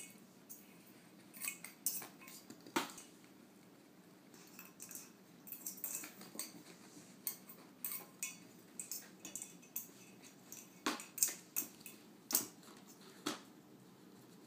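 Irregular sharp metallic clinks and taps of a small shiny ornament ball as a Shiba Inu noses and paws it along the floor, with the loudest clinks about three quarters of the way through.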